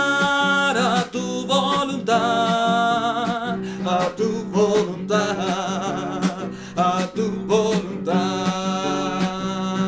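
Music: a song with guitar and a singing voice holding long, wavering notes.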